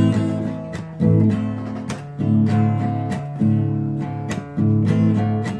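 Background music: an acoustic guitar strumming chords, a fresh strum ringing out about once a second.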